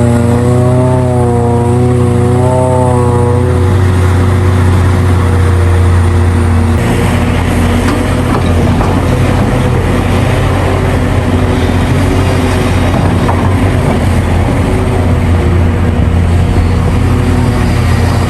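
Hitachi Zaxis 670LC hydraulic excavator working, its Isuzu diesel engine running loud and steady with a pitched drone that wavers in pitch for the first few seconds. From about seven seconds a coarser rushing noise joins it.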